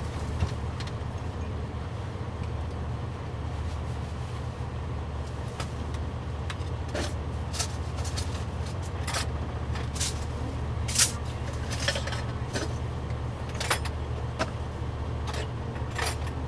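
Steady low hum of an idling semi truck engine, with scattered sharp clicks and clatters of kitchen utensils and packaging being handled; the loudest clack comes about two-thirds of the way through.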